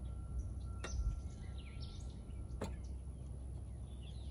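Steel rails of a railroad crossing diamond creaking from thermal expansion: two sharp clicks, about two seconds apart. Birds chirp throughout with short downward-sweeping calls over a low steady rumble.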